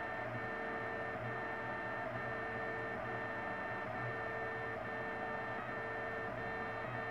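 Printrbot LC 3D printer running a print, its stepper motors whining in steady tones broken by brief gaps about once a second.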